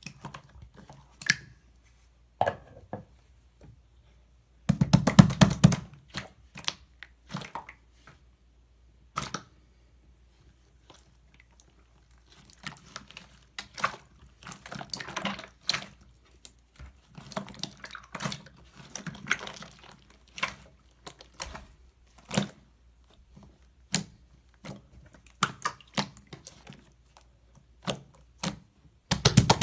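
Slime being squished, stretched and mixed by hand: irregular sticky crackles and clicks, with a dense run of crackling about five seconds in and another near the end.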